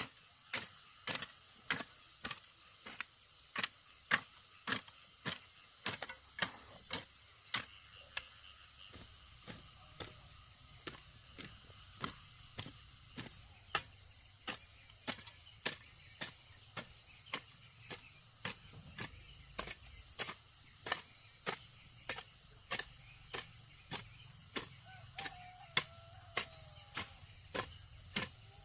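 Steady, regular sharp knocks, about two a second, as of a tool striking over and over, over a steady high-pitched drone of insects.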